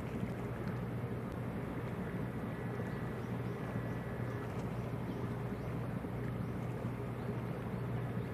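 Car ferry's diesel engine running under way with a steady low drone, over the wash of water along its hull.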